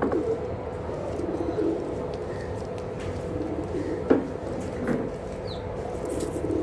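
Domestic pigeons cooing in low rolling calls while pecking grain off a concrete floor, with a few sharp beak taps, the loudest about four seconds in.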